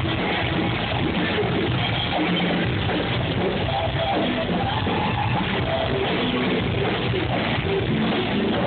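Live heavy metal band playing loud rock with electric guitar, continuous and steady in level.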